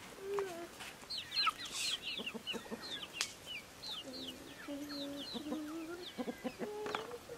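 Chickens clucking, with a run of many short, high, falling chirps through the first few seconds.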